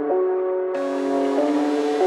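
Outro background music: held chords that change about every second, with a hiss coming in under them about three quarters of a second in.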